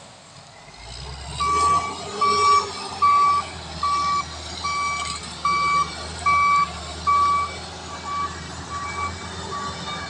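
Heavy machine's reversing alarm beeping at a steady pitch, a little more than once a second, over the low sound of its diesel engine; the beeps start about a second and a half in and grow fainter in the last few seconds.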